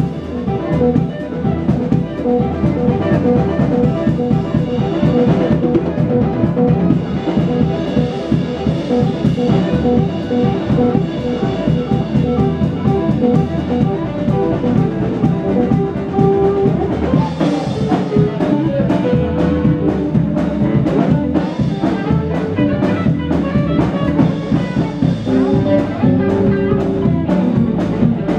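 Live blues band playing an instrumental passage: electric guitars and bass over a drum kit, with a saxophone.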